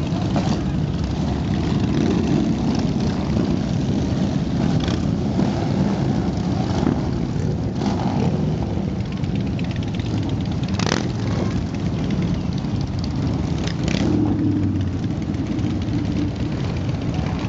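Motorcycle engines running steadily in a mass group ride, with a few short sharp noises cutting through, the sharpest about eleven seconds in.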